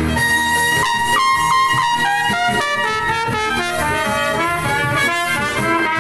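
Trumpet playing a solo phrase: a held high note, then a run of notes stepping down in pitch, with the low backing nearly gone.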